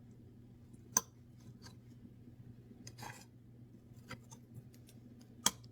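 Utensil clicking and scraping against a dish while cutting into a microwave pineapple upside-down cake. There are a few sharp clicks, the loudest about a second in and near the end, with fainter ticks and a soft scrape between them.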